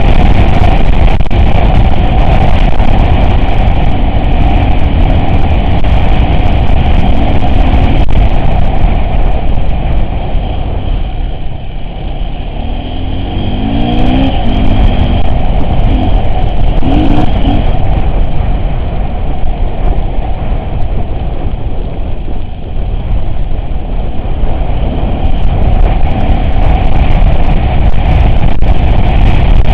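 Off-road vehicle driving, its engine running under a loud, continuous rumble. The sound eases for a few seconds near the middle, then comes back up with a few short rises in engine pitch.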